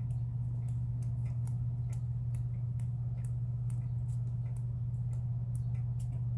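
A steady low hum with irregular light clicks and ticks over it, a few a second.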